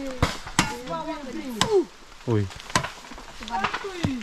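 A machete hacking into a standing green bamboo stalk: several sharp knocks roughly a second apart, with voices in between.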